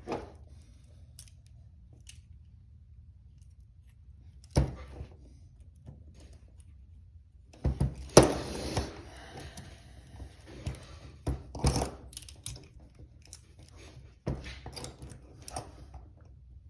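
Steel handcuffs and a metal handcuff key clinking and clicking in irregular bursts as the key is worked at the cuffs, loudest in a cluster about eight seconds in.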